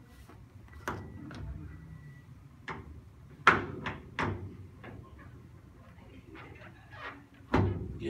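Chiropractic adjustment of a man lying on his back: a series of sharp knocks and pops as the chiropractor thrusts down on his pelvis and low back and his body is pushed into the padded treatment table. The loudest comes about three and a half seconds in and another just before the end.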